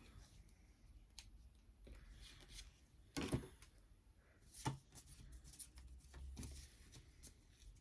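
Faint handling of a Pokémon booster pack and its trading cards: soft rustles and light clicks, with two sharper snaps a little past three seconds and near five seconds.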